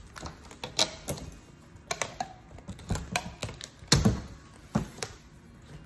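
Clear shipping tape being pressed and smoothed by hand along the seam between two foam boards, with irregular taps and crinkles. The loudest tap comes about four seconds in.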